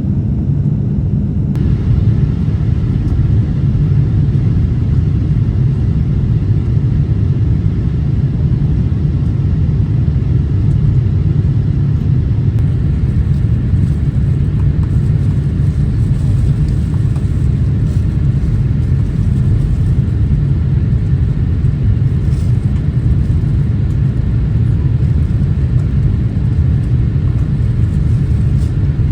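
Steady low rumble of airliner cabin noise from the Boeing 787-8's engines and the airflow around the fuselage, heard from inside the cabin.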